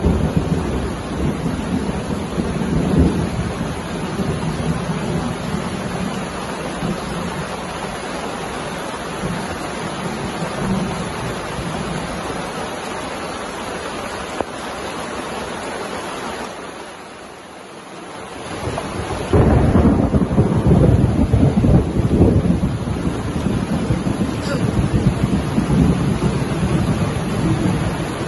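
Heavy rain falling steadily with deep rumbles of thunder. The rumbling eases off briefly and then swells again, strongest about two-thirds of the way in.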